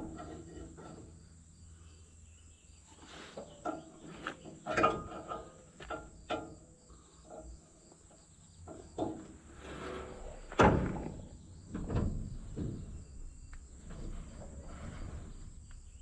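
Irregular clicks, knocks and rustles of hand work with a grease gun on a square baler's grease fitting, with a couple of louder knocks in the second half.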